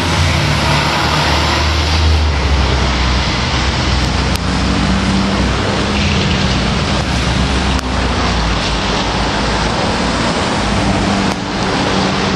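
Fire truck's diesel engine pulling away through traffic. Its low drone is strongest in the first couple of seconds and then falls back under a steady rush of road noise.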